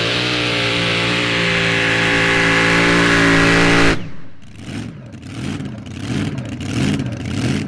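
Mini Modified pulling tractor's engine at full throttle, running at steady high revs with a whine above it. The sound cuts off abruptly about four seconds in, then a quieter engine revs up and down.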